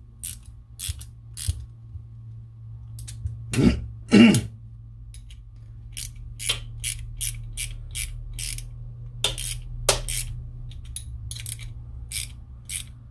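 Hand ratchet clicking in short strokes as it tightens the clamp bolts of a pipe-flaring tool holding copper pipe, settling into about two clicking strokes a second over the second half. Two louder sounds stand out about four seconds in.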